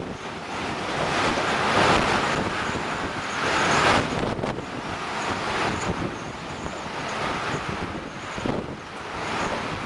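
Storm-force wind buffeting the microphone, a loud rushing that rises and falls in gusts, strongest about two and four seconds in.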